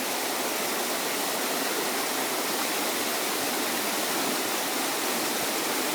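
Waterfall rushing, a steady, unbroken wash of water noise.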